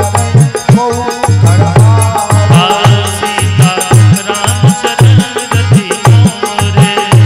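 Harmonium and dholak playing a devotional folk tune, the dholak's deep bass strokes falling about twice a second under the harmonium's melody.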